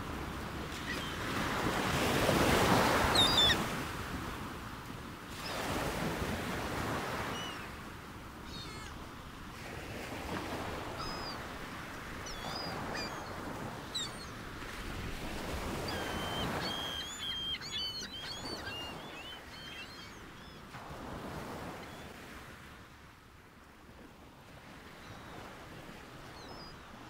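Sea waves washing in, swelling and fading every three to four seconds, the biggest swell a few seconds in. Short high bird chirps come and go, most of them in the middle stretch.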